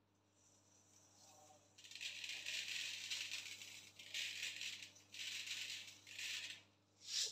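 Dry uncooked rice rattling as it is shaken out of a container onto ground meat in a bowl. It comes in four or five spells of shaking, starting about two seconds in, with a short final shake near the end.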